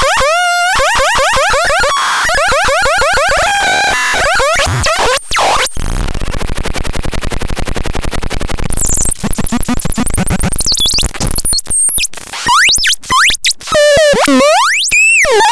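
Synthesizer č 78002 playing electronic sound effects: fast-repeating pulsed tones with shifting pitch, then a rapid buzzing pulse train mixed with noise, then wide swooping pitch glides up and down near the end.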